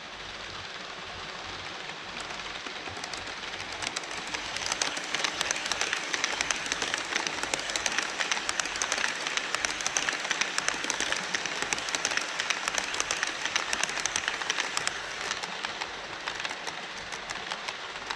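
HO-scale model train running over a truss bridge on Kato Unitrack: a dense, rapid clicking and rattling of the wheels on the track. It grows louder about four seconds in and eases off near the end.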